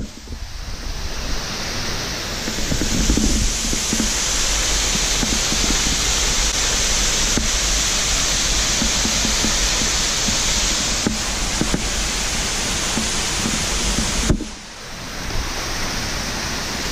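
Steady rushing noise of a waterfall, with a low rumble underneath; it drops away briefly about two and a half seconds before the end.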